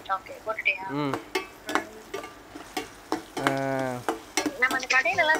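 Metal slotted spatula stirring onions frying in oil in a stainless steel kadai: steady sizzling with repeated sharp clicks and scrapes of the spatula against the pan. A short pitched voice sound comes about three and a half seconds in.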